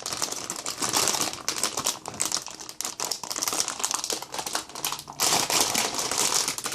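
Packaging of a graphics card being unwrapped by hand: a dense run of rustling and crackling that stops near the end.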